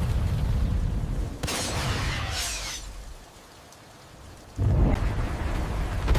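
Cinematic battle sound effects: a deep rumble, then a bright crashing, hissing burst about a second and a half in. A short lull follows, then a sudden heavy boom near the end that keeps rumbling.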